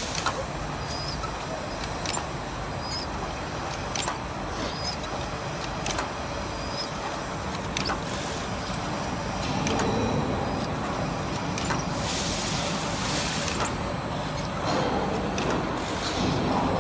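MIC-L45 automatic aluminum tube filling and sealing machine running, with a sharp clack about every two seconds as it cycles, over a steady high whine. Now and then there is a burst of hiss, the longest near the end.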